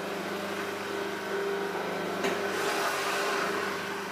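Electric juicer motor running with a steady hum while watermelon and tomato pieces are pushed down its feed chute, with a brief click about two seconds in.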